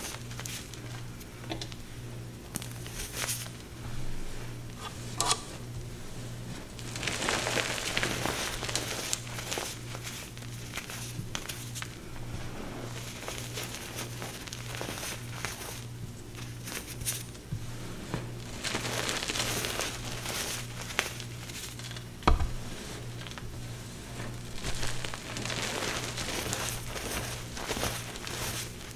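Hands squeezing and rubbing through a heap of crumbled powder, giving soft powdery crunching and crackling that swells and fades with each squeeze. A steady low hum runs underneath, and there is one sharp knock late on.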